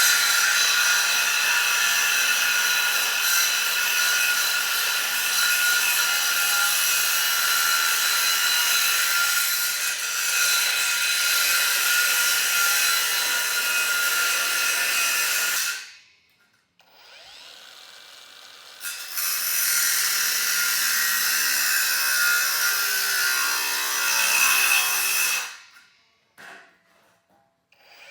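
Power tool running under load with a steady high whine for about sixteen seconds, stopping, then starting again for a second run of about six seconds. Near the end of the second run its pitch drops just before it cuts off.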